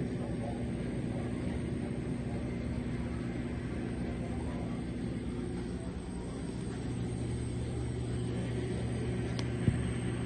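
Tunnel car wash machinery running: spinning brush curtains and their motors making a steady low hum and rumble, muffled through the viewing-window glass, with one sharp knock near the end.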